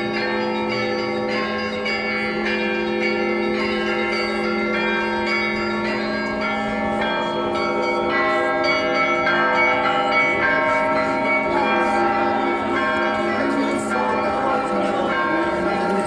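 Orthodox church bells ringing a continuous peal, many bells struck so their tones overlap and hang on without a break.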